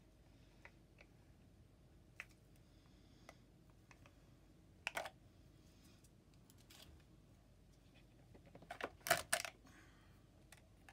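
Sparse clicks and taps of small plastic craft pots, cups and tools being handled on a tabletop while glitter is added to a resin clock mould, with a louder cluster of knocks about nine seconds in.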